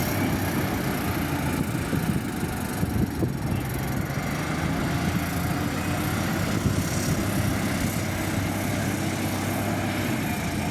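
Diesel engine of heavy earthmoving machinery running steadily, with an even low hum.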